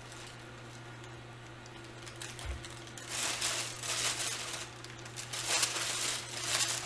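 Candy packaging crinkling and rustling as it is handled, in irregular rustles from about three seconds in, over a steady low hum. A soft thump comes just before the rustling starts.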